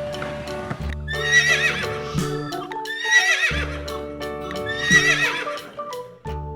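A horse whinnying three times, each a wavering high call about a second long, over background music.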